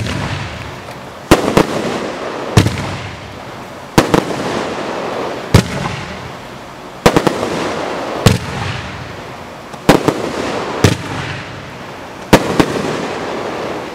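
A 500-gram, 27-shot consumer firework cake firing its shots: sharp bangs about once a second, some in quick pairs, with hissing and crackling from the bursts between them.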